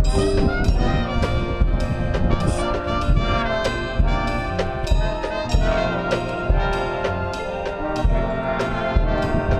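Marching band brass, trumpets and trombones, playing sustained chords over a steady drum-line beat.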